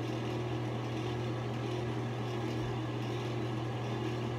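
Steady low hum of running room ventilation, even in level throughout.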